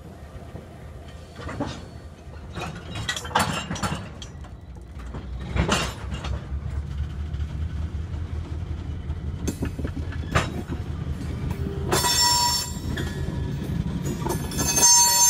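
Train of old whale belly covered cement hopper cars rolling slowly on the rails, a low rumble growing louder with scattered sharp knocks from the wheels. About twelve seconds in, a high-pitched steel wheel squeal starts and keeps going.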